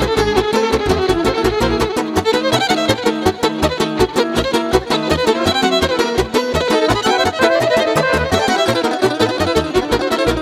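Fast Balkan dance tune (drajf) with a lead violin over a quick, steady beat.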